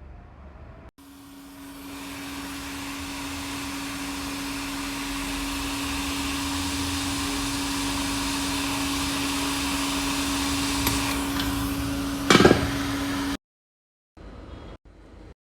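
Hot-air rework station blowing steadily, a fan hum under a rushing air hiss, as used to heat the board when replacing an iPhone 7 Plus audio IC. It starts about a second in, has a short louder burst near the end, and then cuts off suddenly.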